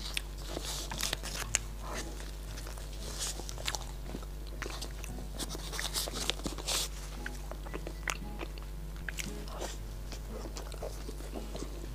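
Close-miked sounds of a person biting into and chewing a large, soft snow-skin mochi (xuemeiniang) with a runny filling: a string of short, sticky mouth clicks and wet smacks over a faint steady hum.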